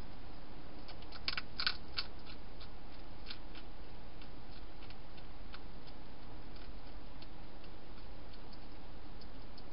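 Small crisp clicks and crunches, a quick cluster about a second in and then scattered single ones, over a steady hiss: a wild hedgehog crunching dry food.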